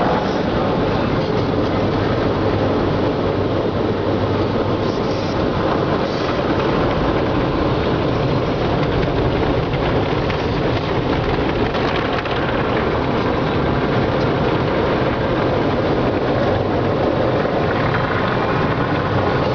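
Car wash equipment running: a steady, loud rushing noise with a low rumble underneath.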